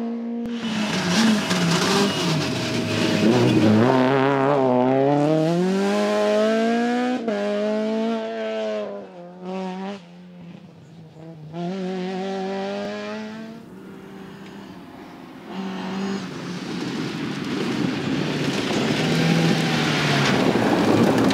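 Rally car engine at full throttle, revving up and dropping in pitch again and again as it shifts gears and brakes. The level dips twice in the middle as the car moves off. Toward the end the engine returns with tyre noise and some tyre squeal.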